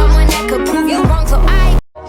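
Hip hop music with a heavy bass line and a vocal line, cutting off abruptly near the end.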